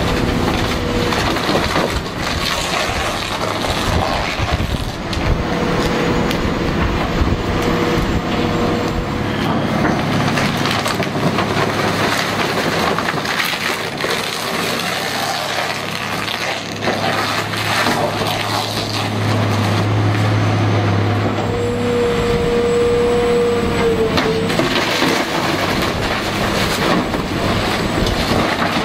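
Caterpillar excavator's diesel engine running under load while its demolition shears crush and tear the wooden, fibreglass-sheathed hull of a boat, with crunching, cracking and splintering throughout. A whine comes in twice, for a few seconds each time.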